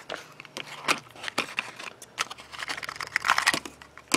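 A small toy box being opened by hand: scattered clicks and crinkling of the packaging, with a denser stretch of rustling or tearing about three seconds in and a sharp click at the end.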